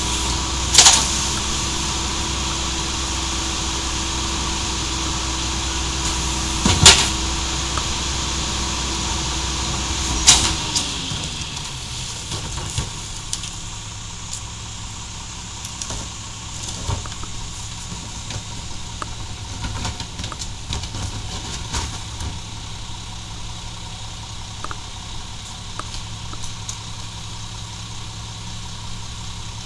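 Mack MR garbage truck engine running at raised revs, with three sharp loud bangs as wheeled trash carts are tipped and knocked against the rear-loader hopper. About ten seconds in the engine note glides down and the truck settles to a quieter idle.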